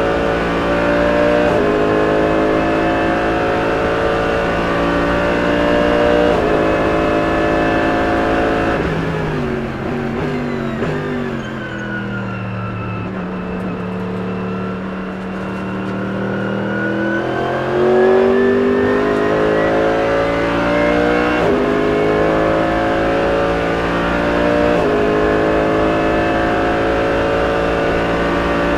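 Mercedes-AMG GT3 race car engine heard from the cockpit, running hard under acceleration with quick upshifts twice early on. About nine seconds in it falls away as the car lifts and brakes, running low for several seconds, then the engine note rises again under power, with two more upshifts near the end.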